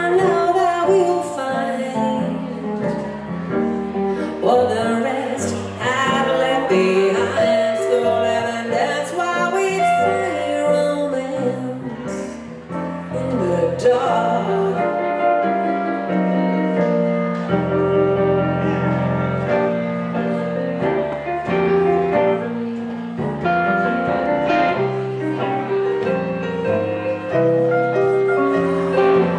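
Live instrumental break of a slow song, played on a hollow-body archtop electric guitar and a stage keyboard with a piano sound, with a walking bass line under the chords.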